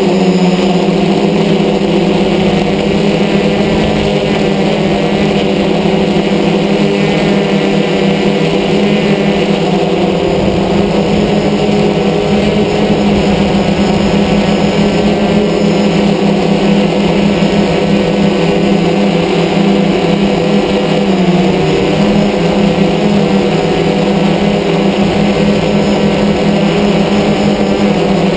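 DJI F550 hexacopter's six brushless electric motors and propellers buzzing steadily in flight, heard loud and close from the camera mounted on the craft. The pitch dips briefly about 21 seconds in, then comes back.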